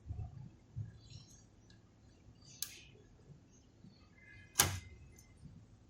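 Sharp clicks and taps of small tools being handled during hand soldering, a louder click about two and a half seconds in and the loudest about four and a half seconds in, with soft knocks near the start.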